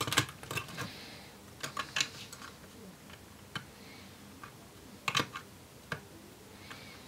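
Irregular small clicks and taps of a plastic pry tool and a flat drive ribbon cable against a laptop's open internals as the cable is pressed into its board connector. The louder clicks come about two seconds in and again about five seconds in.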